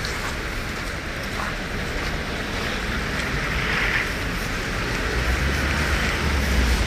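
Steady rushing outdoor noise of wind on a handheld microphone and city traffic, with a low rumble growing stronger near the end.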